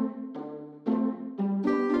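Background music: a light instrumental with short notes that start sharply and fade, about two a second.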